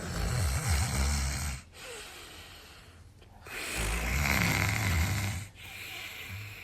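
A man snoring heavily in his sleep: two long, loud snores, each lasting about two seconds, with a quieter breath between them.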